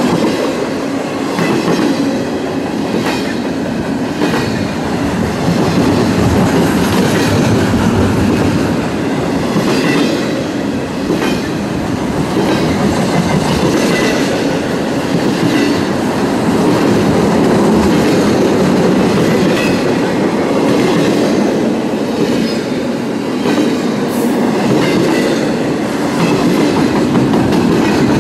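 CSX double-stack intermodal freight train rolling past: a steady, loud rumble of loaded well cars, with the clickety-clack of wheels over the rail joints.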